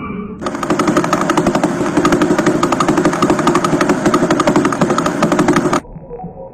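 Harsh, dense crackling static made of very rapid clicks, the kind of space radio recording played back as sound. It starts about half a second in and cuts off suddenly near the end.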